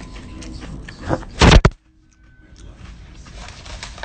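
A phone handled right against its microphone: a small knock, then a loud, brief thump and rub about a second and a half in. The sound then drops out for a moment before the room's background returns.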